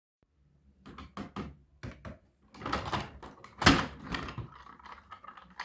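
Irregular clicks and knocks of objects being handled, about a dozen in all, the loudest a sharp knock about three and a half seconds in.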